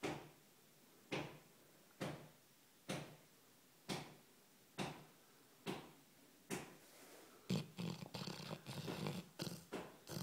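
Young Labrador retriever snoring in his sleep: a short snore about once a second, each starting sharply and fading. From about seven seconds in the snores come faster and choppier, running almost together.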